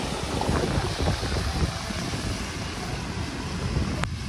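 Hurricane-force gusty wind buffeting the microphone in uneven rumbling swells, with a single sharp click near the end.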